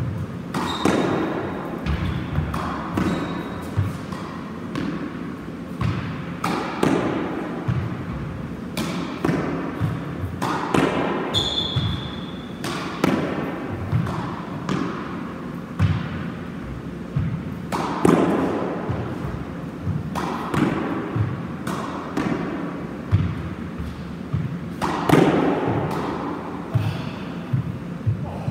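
Squash ball hit repeatedly in solo practice: sharp racket strikes and rebounds off the front wall and wooden floor, about one every one to two seconds, each ringing out in the court's echo.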